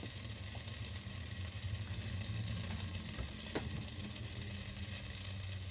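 Butter sizzling softly as it melts in a stainless steel pan, a faint even hiss over a steady low hum.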